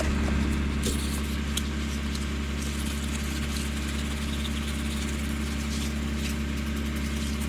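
Engine running steadily at an even speed, with a few short clicks and knocks on top.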